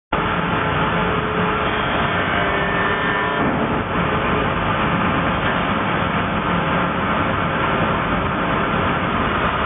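Timber-milling machinery running steadily while Douglas fir is milled. A whine of several steady tones sits over the machine noise for the first three and a half seconds, then drops away while the machine keeps running.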